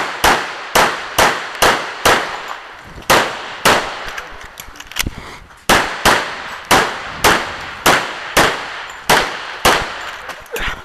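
Rapid string of about twenty shots from a .45 ACP 1911 pistol, roughly two a second, each with a short ringing echo, with one longer gap of about a second near the two-second mark.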